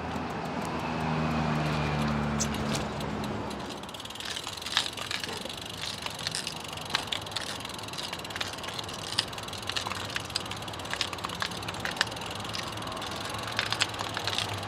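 A motor vehicle's engine passes by during the first few seconds. After that comes a steady outdoor background hiss with scattered, irregular sharp clicks and ticks.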